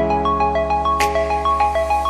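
Background music: a quick run of short, bright notes, about five a second, over a held low note, with a cymbal-like swell about a second in.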